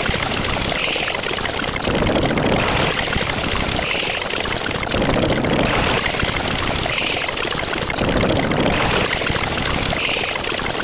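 A loud rushing noise like pouring or running water, looped so that the same pattern comes round about every three seconds.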